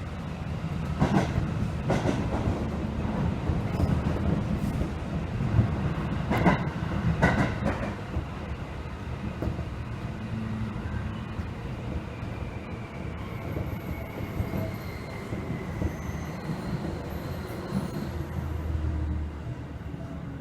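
Seibu Railway 2000 series electric train: a steady low rumble with sharp knocks, two close together about a second in and two more around seven seconds in. A faint whine falls slowly in pitch in the second half.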